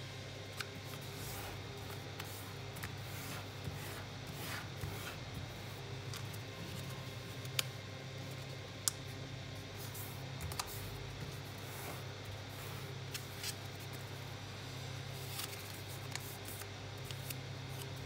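Square of origami paper being folded and creased by hand: scattered crinkles and rustles, with two sharp clicks a little past the middle as creases are pressed flat, over a steady low hum.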